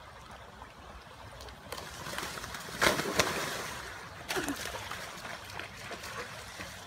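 A dog tumbling off a fallen log into a shallow creek and splashing in the water, over the steady trickle of the creek. The loudest noise comes a little before the middle.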